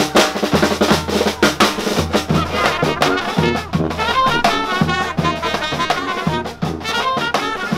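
Marching brass band playing: trumpets and saxophone hold melody notes over a fast, busy beat from a bass drum with cymbal and snare drum.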